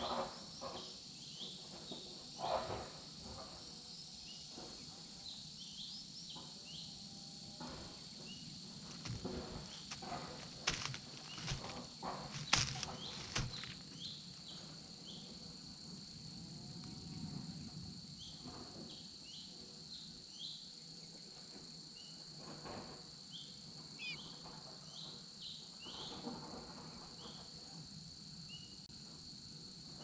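Steady high insect drone at two pitches, with many short high chirps scattered through it. Over this come intermittent rustling and cracks of twigs and dry leaves as an eagle shifts about in its stick nest. The cracks are loudest and most frequent about ten to fourteen seconds in.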